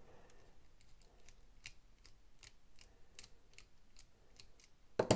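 Torx driver turning out the small pocket-clip screws of a folding knife: faint, evenly spaced clicks, about two or three a second, with one louder click near the end.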